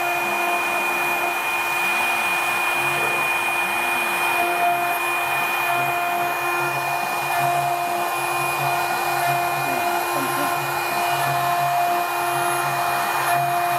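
CNC engraving machine spindle running with a fine engraving bit cutting a brass disc: a steady high whine over a hiss, with lower hums that come and go as the machine moves.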